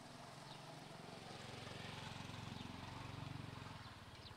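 Faint engine hum, swelling to its loudest about three seconds in and then fading.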